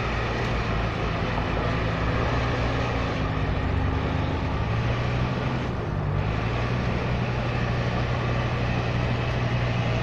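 Off-road 4x4 SUV's engine running under load at fairly steady revs as the vehicle crawls through deep forest mud.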